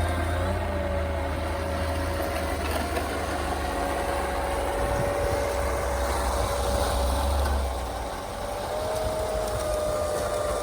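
Steady whine of a model snowblower's motor spinning its impeller through light snow, rising slightly in pitch near the end, over a low rumble that stops about eight seconds in.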